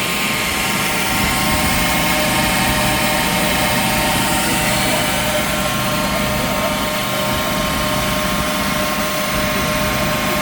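Steady roar of a forced-air forge burning, with the blower's constant hum carrying several held tones over a rushing noise.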